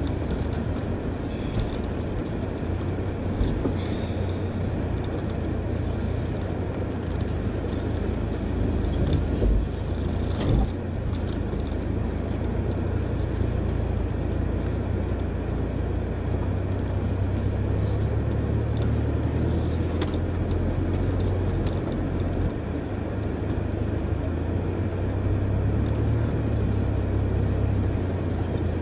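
Land Rover's engine running steadily at low speed as it crawls along a rough, muddy off-road track, with a few knocks and rattles from the bumpy ground.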